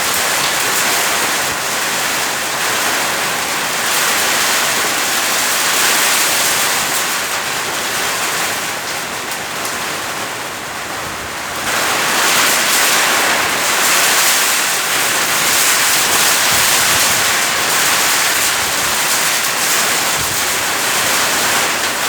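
Heavy rain pouring steadily in gusty wind, a dense hiss of rainfall. It eases a little about halfway through, then picks up again louder.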